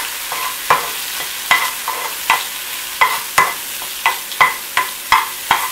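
Dried red chiles toasting and sizzling in hot oil in a skillet while a spatula stirs them. The spatula knocks and scrapes against the pan about three times a second, and the pan rings briefly with each stroke.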